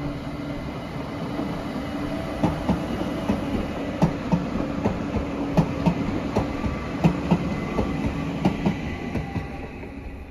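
Train running along the track with a steady hum, its wheels clicking irregularly over rail joints through most of the stretch and easing off near the end.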